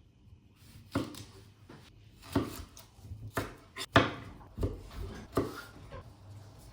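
Irregular knocks and taps of food being handled on a cutting board, about eight in all, the loudest about four seconds in.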